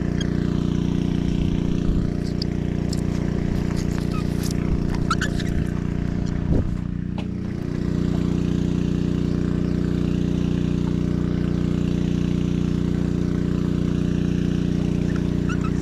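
An engine idling steadily, a loud even drone with a low hum, with a few light clicks and a short knock about halfway in.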